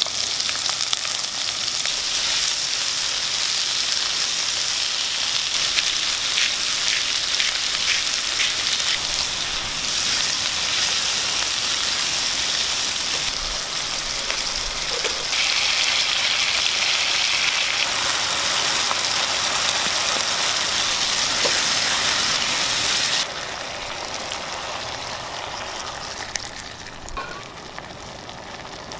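Diced watermelon rind, onion and tomatoes sizzling in hot oil in a frying pan, with a few sharp spatula clicks early on. About 23 seconds in the sizzle drops suddenly to a quieter hiss once the pan is full of sauce.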